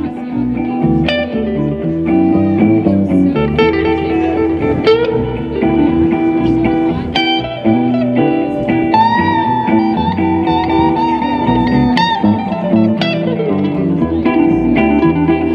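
Live rock band playing an instrumental passage: electric guitars over an electric bass, with a lead guitar note bending up in pitch about nine seconds in.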